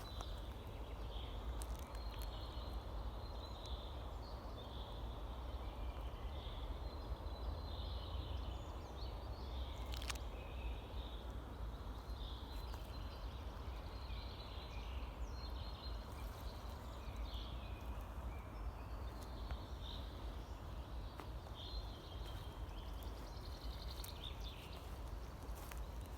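Forest birds singing short chirping phrases, one after another, over a steady low rumble of wind. A few sharp clicks cut in, one about ten seconds in.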